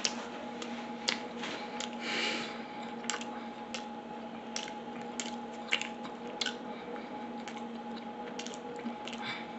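A person chewing a mouthful of fried chicken sandwich with the mouth closed: irregular wet smacking clicks, roughly one or two a second, over a faint steady hum. A brief soft hiss comes about two seconds in.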